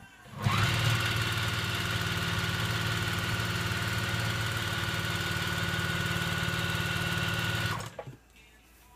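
Juki sewing machine stitching a hem into a length of cloth: the motor speeds up with a short rising whine about half a second in, runs at an even high speed for about seven seconds, and stops suddenly near the end.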